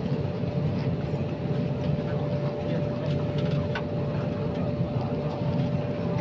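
Steady hum of an airliner cabin after landing, its air conditioning running and misting from the vents, with a thin steady whine held above the hum.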